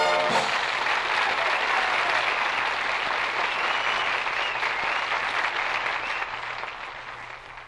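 Studio audience applauding after the band's final chord cuts off about half a second in. The applause fades away over the last couple of seconds.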